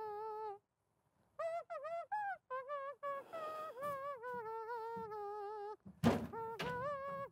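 A man humming a wandering tune that breaks off briefly about a second in, with a couple of sharp thumps about six seconds in.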